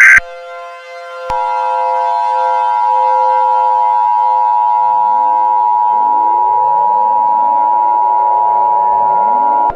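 Emergency Alert System attention signal: a steady two-tone alarm that starts about a second in and is held for about eight seconds before cutting off sharply. It comes just after the tail of a SAME header data burst. A low synth drone sits underneath, and rising swooping synth tones join it in the second half.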